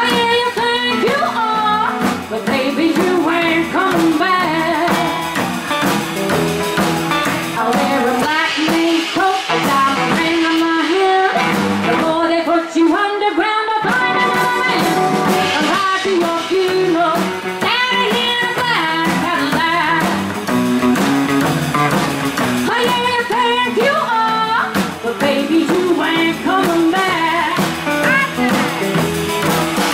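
Live rockabilly band playing: a woman singing lead over a strummed acoustic guitar, electric guitar and drums.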